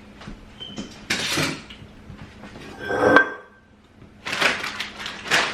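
Kitchen dishes and utensils clattering as things are picked up and set down, with one sharp ringing clink of metal or glass about three seconds in.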